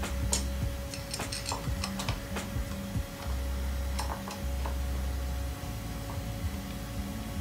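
Scattered small clicks and light clinks of a T-handle hex key turning an Invert-a-Bolt fastener in an acrylic fixture, tightening it up into the part to hold it. The clicks come mostly in the first half, over a faint steady hum.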